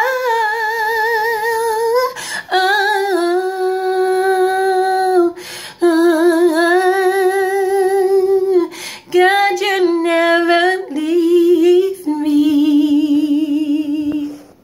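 A woman singing a worship song solo and unaccompanied, held notes with a wide vibrato in several phrases with short breaths between. She ends on one long steady note near the end.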